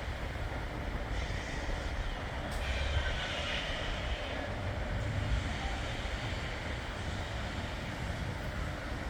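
Freight train led by a pair of EMD SD70MAC diesel-electric locomotives running under power, a steady low rumble with a rougher rushing noise that swells slightly a few seconds in.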